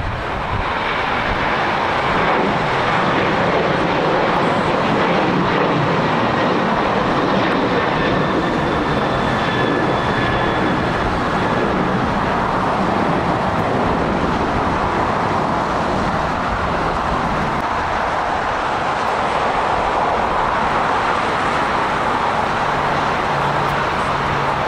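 Jet airliner engines running loud and steady, a broad roar with a faint high whine that slowly falls in pitch.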